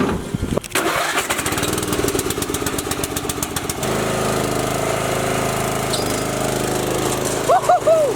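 Riding lawn mower's Briggs & Stratton engine starting up: a fast run of firing pulses for the first few seconds, then settling into a steady run about four seconds in.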